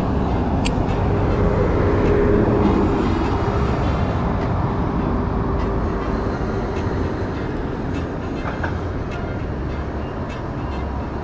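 Steady road traffic rumble from vehicles on a highway bridge, one vehicle passing a little louder about two seconds in.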